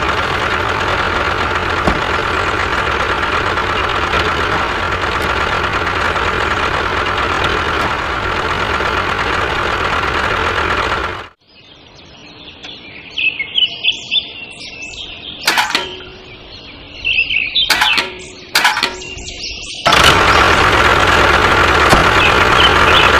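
Steady engine-like running noise with a faint high whine from a miniature tractor, cutting off abruptly about eleven seconds in. A quieter stretch follows with birds chirping and a few sharp clicks, and the running noise starts again near the end.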